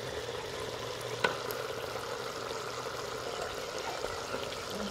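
Boneless chicken pieces and freshly added sliced onions frying in ghee in an earthenware pot, a steady sizzle. A single sharp knock sounds about a second in.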